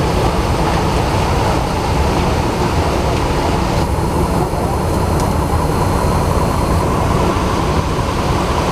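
Steady low rumble of coach diesel engines running, with an even hiss over it.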